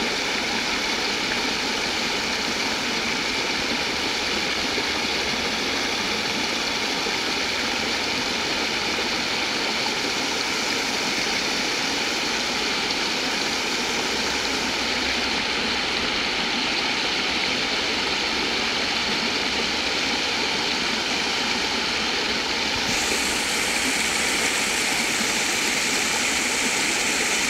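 Creek water rushing over a flat rock ledge in a small cascade: a steady, unbroken rush of running water.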